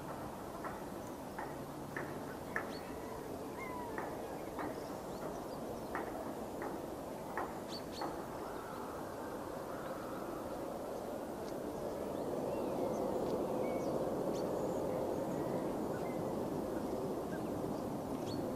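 Distant jet airliner noise: a low, even rumble that swells gradually from a little past halfway and stays up. Short bird chirps come through over the first half.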